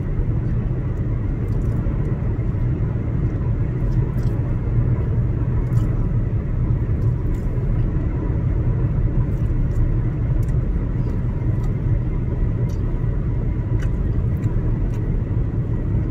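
Steady low rumble of road and engine noise, heard from inside the cabin of a moving car.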